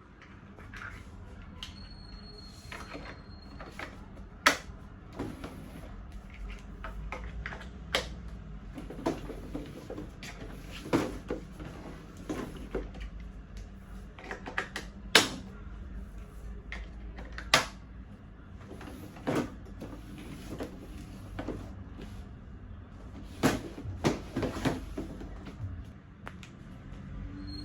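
Irregular clicks and knocks of high chair parts being handled and fitted together, with a few sharper knocks among them.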